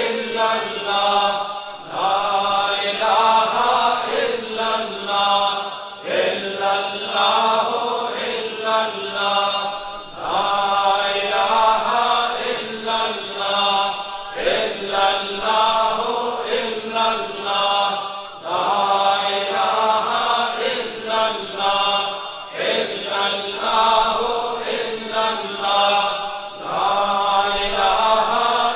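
Men's voices chanting Islamic zikr together in a repeating melodic phrase, each phrase lasting about four seconds with a short breath between.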